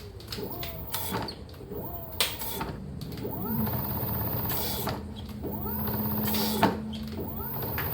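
EverCross H5 electric scooter's hub motor whining as it speeds up and slows down twice, with a steady hum while it runs and scattered clicks and knocks, during a test of the newly fitted rear brake.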